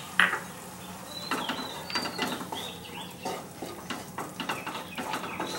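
Wooden spatula stirring and scraping a non-stick wok of thin, watery chhena masala just after the water has gone in: a quick run of scrapes with small squeaks. A sharp clatter comes just after the start and is the loudest sound.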